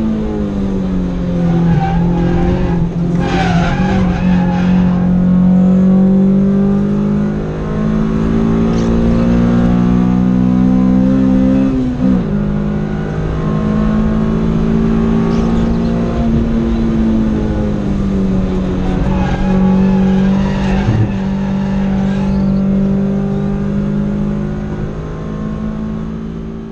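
Honda Civic EK's B16A2 1.6-litre VTEC four-cylinder engine heard from inside the cabin, held at high revs on track, with a sudden drop in pitch at an upshift about twelve seconds in and the pitch easing down and climbing again around sixteen seconds. Tyres squeal through corners a few seconds in and again around twenty seconds.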